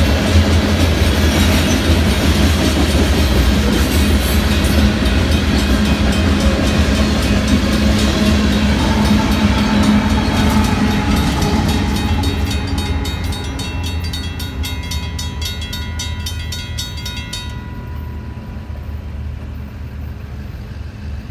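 Union Pacific freight train of covered hopper cars rolling past at the crossing, a loud low rumble of wheels on rail with a locomotive passing about halfway through. The rumble eases off over the last several seconds as the end of the train clears, while the crossing bell keeps ringing in a fast regular beat.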